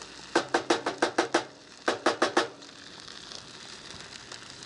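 Wooden spoon knocked against the rim of a cooking pot, likely to shake off rice: a quick run of about seven sharp knocks, a short pause, then four more.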